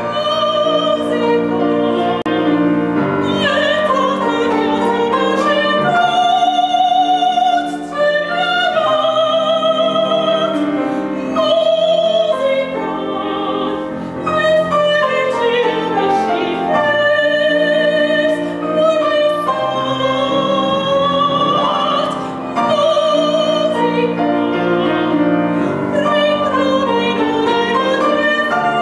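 Female opera singer singing an aria with a strong vibrato on held notes, accompanied by a grand piano.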